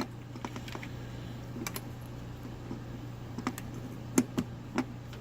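Scattered small plastic and metal clicks as battery strap snap connectors are fitted onto two 9-volt batteries, with a few sharper clicks in the last second and a half.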